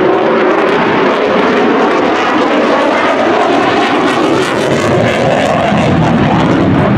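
Loud, continuous jet noise from an F-35A's afterburning turbofan in afterburner during a hard-turning demonstration pass. A rough, crackling edge comes through in the middle, and the low rumble fills out near the end.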